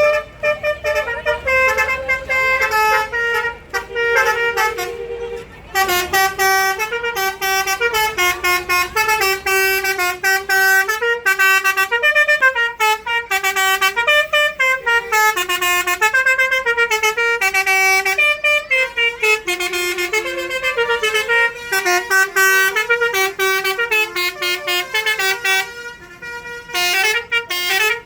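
Bus Basuri 'telolet' horns, multi-tone musical air horns, playing quick melodic runs of stepped notes that overlap as several buses trade tunes, with brief breaks about five seconds in and near the end.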